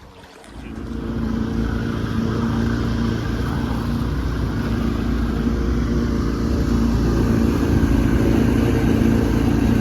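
A boat's outboard motor opening up about half a second in, then running steadily under way with an even hum.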